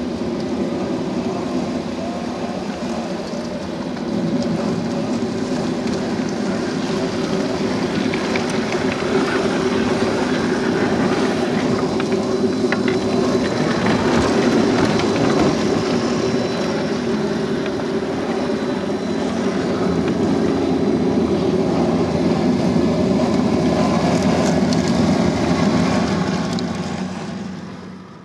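Traxxas TRX-4 Defender and CrossRC BC8 Mammoth RC scale crawlers driving slowly, their electric motors and geared drivetrains whining steadily, with tires crunching over gravel and pine needles. The sound fades out near the end.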